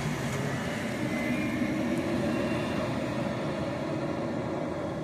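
Concrete truck's diesel engine running steadily.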